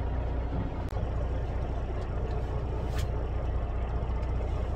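Fishing boat's engine idling, a steady low drone, with two short sharp clicks about one and three seconds in.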